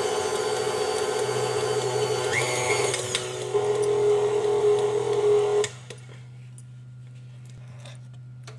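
Electric stand mixer beating thick cake batter in a stainless steel bowl, its motor whirring steadily. The pitch shifts and it grows louder partway through, then it switches off suddenly about two-thirds of the way in, leaving a low hum and a few faint clicks.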